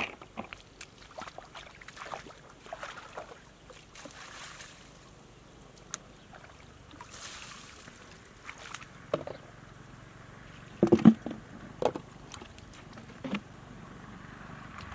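Water splashing and sloshing in irregular bursts as a plastic basin scoops muddy water in a shallow pool, with a cluster of louder splashes about eleven seconds in.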